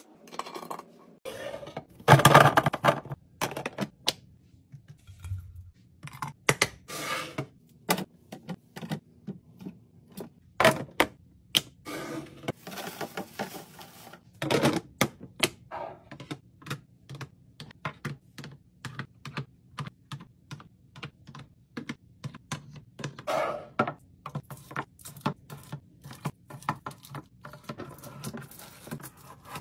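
A run of small clicks, taps and knocks from items and containers being handled and set down during fridge restocking, with a louder clatter about two seconds in. From the middle on the clicks come quickly and fairly evenly, several a second.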